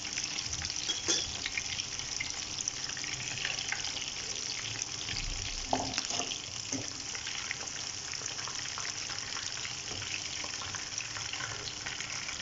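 Marinated, flour-coated chicken pieces shallow-frying in hot oil in a pan: a steady sizzle with fine crackling. A couple of sharper knocks come from the metal tongs and wire skimmer touching the pan.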